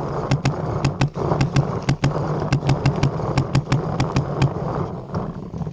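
Paintball markers firing in rapid strings of sharp pops, several shots a second, which die away about five seconds in.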